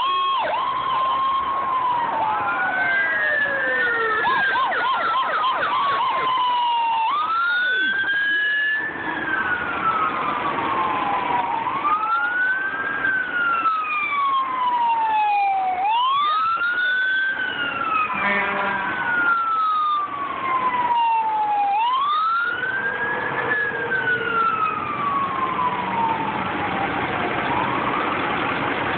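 Emergency vehicle sirens going by, several overlapping. One switches between a rapid yelp and a slow wail that climbs quickly and falls off slowly every few seconds.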